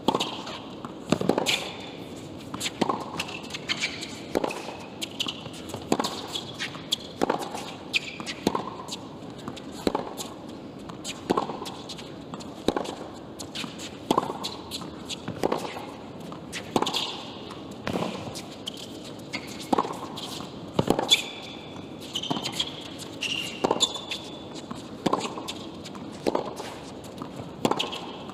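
Tennis ball struck back and forth by rackets in a long rally, a sharp hit about every one and a half seconds, with short high squeaks of shoes on the hard court between shots.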